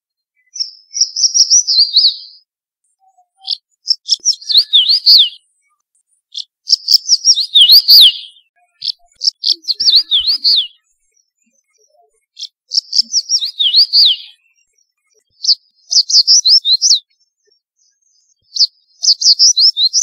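Crested bunting singing: short, quick phrases of high notes, many of them sliding downward, repeated with brief pauses between.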